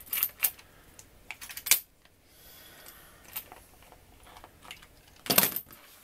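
Metal clicks and clinks from a Master Lock M15 padlock being handled with a tension wrench and rake pick in its keyway: a few light clicks in the first two seconds and a louder clatter about five seconds in.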